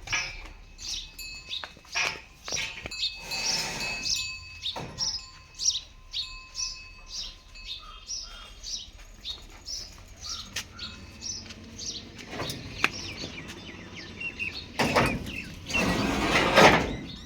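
Birds chirping, with scattered knocks and clatter, and a louder stretch of rushing noise lasting about two seconds near the end.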